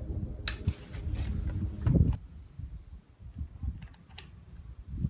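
A handful of separate clicks and knocks, the loudest about two seconds in, from the single-shot Handi Rifle being handled between shots.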